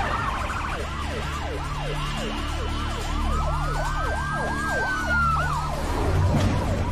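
Emergency vehicle siren in a fast yelp, its pitch sweeping up and down about three times a second, with a second siren's slow wail rising and falling once across the middle.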